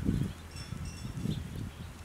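Wind gusting against the microphone in low rumbling buffets, strongest at the start and again about a second in, with a few faint high tones about half a second in.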